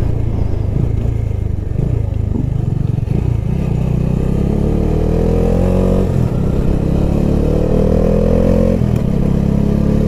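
Motorcycle engine running under way on the road, with a steady low rumble. From about four seconds in, the engine note climbs, drops sharply twice (about six seconds in and near nine seconds) and climbs again each time, as the bike accelerates and shifts up.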